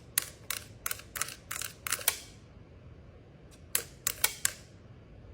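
A quick run of sharp clicks, about eight in the first two seconds, then a pause and a second run of about five clicks a little past the middle.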